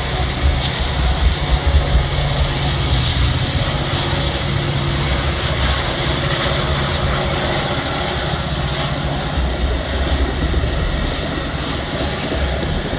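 Metra bilevel passenger coaches rolling past close by: a steady rush and rumble of steel wheels on rail, under the drone of the train's diesel locomotive working under load.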